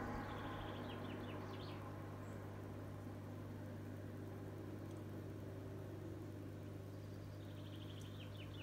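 Steady low electric hum of aquarium equipment such as an air pump or filter. Twice, about half a second in and again near the end, a quick run of faint high squeaky chirps.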